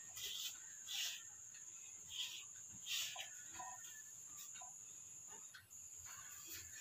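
Fingers stirring dry flour in an aluminium bowl, making soft rustling scrapes about once a second, then fainter. A steady high-pitched whine runs in the background.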